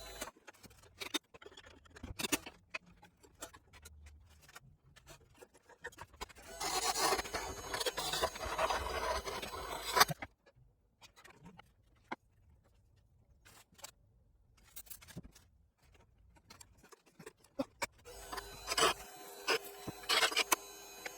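A tool or abrasive scraping against a spinning wooden piece on a wood lathe. It comes in two stretches of a few seconds each, the first about six seconds in and the second near the end, with scattered light clicks and knocks between them.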